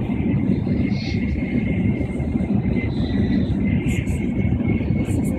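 Tokaido Shinkansen train running at speed, heard inside the passenger cabin: a steady low rumble with a faint thin whine above it.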